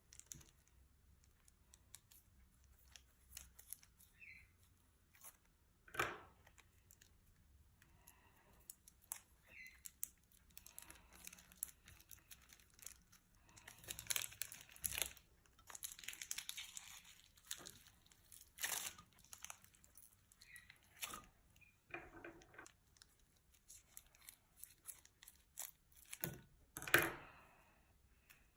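Store-bought slime and plastic bags being handled: irregular sticky crackling, tearing and crinkling with scattered small clicks. The loudest crackles come about six seconds in and near the end.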